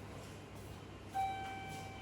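Quiet background, then about a second in a single steady electronic chime tone begins and holds.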